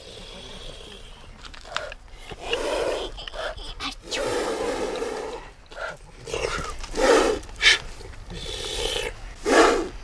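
A man blowing and huffing hard into his cupped hands in a string of breathy exhalations and rough vocal bursts of varying length, the loudest near the end.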